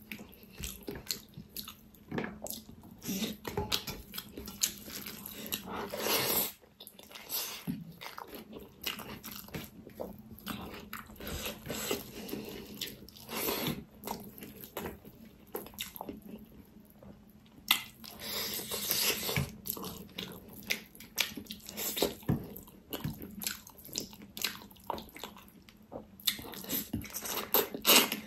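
Mouth sounds of eating pickled pork feet by hand: biting and chewing the meat off the bones, with wet smacking and many short, irregular clicks.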